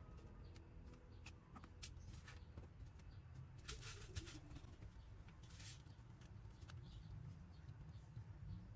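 Faint small clicks and taps, with two short hissy scrapes about four and five and a half seconds in, over a low steady hum.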